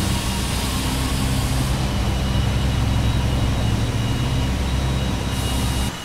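Steady low mechanical drone of a running machine, with several held low tones under an even hiss, cutting off abruptly near the end.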